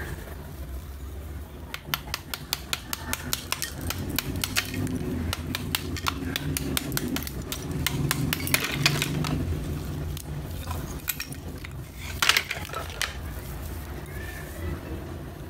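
A small hammer tapping and splitting layered slabs of roasted multani mitti (fuller's earth clay), giving a fast, uneven run of crisp clicks and crackles as the thin layers flake apart, with a louder crack about twelve seconds in.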